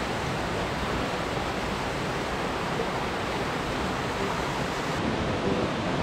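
Rocky mountain stream running over rock slabs and small cascades: a steady, even rush of water.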